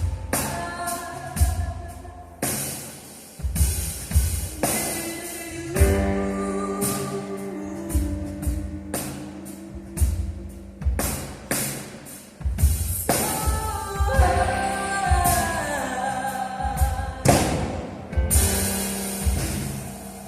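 A trio playing a slow song: a woman singing over piano and keyboards, with a drum kit keeping a steady beat.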